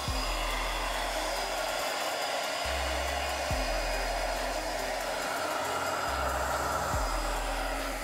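Vega Pro Touch hand-held hair dryer (1800–2000 W) running steadily, a continuous rush of blown air.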